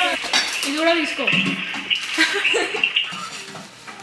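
A glass pot lid clinks as it is lifted off a pan of cut green peppers cooking in oil, with a steady hissing sizzle underneath and a sharp click about two seconds in. A voice is heard over it in the first half.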